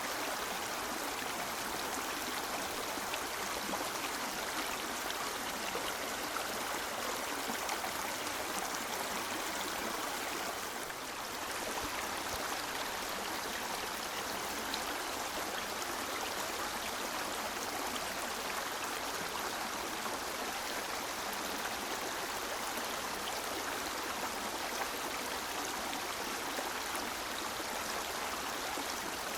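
River water flowing: a steady, even rush of running water, dipping slightly for a moment about eleven seconds in.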